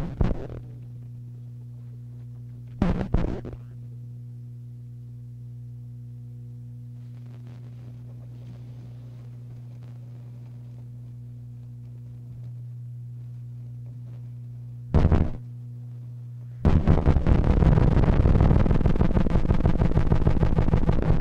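Harsh experimental noise music: a steady low electronic hum drones underneath while short blasts of harsh noise cut in at the start, about three seconds in and about fifteen seconds in. Near the end a long, loud wall of dense, rapidly pulsing noise takes over.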